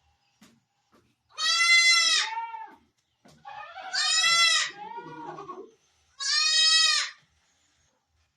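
Barbari goat bleating three times in a row, each call drawn out and high-pitched, the middle one longest.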